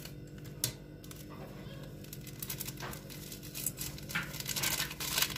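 Plastic sachet of vanilla flan mix crinkling as it is handled and squeezed out over a steel bowl of whipped cream, with a sharp click under a second in and scratchy rustles that grow busier near the end.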